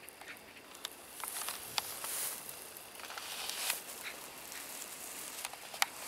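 Rustling of dry, dormant grass, with scattered small crisp clicks and crackles.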